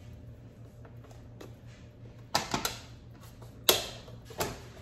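Four sharp knocks and clacks of containers being handled on a kitchen countertop, the loudest about three-quarters of the way in, over a steady low hum.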